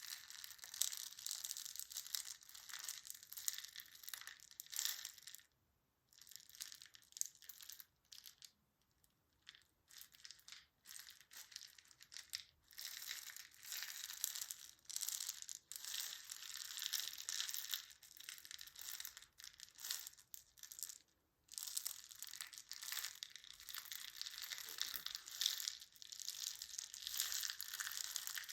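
Dense crinkling and crackling, as of something being crushed or crumpled by hand, in long stretches with a few pauses.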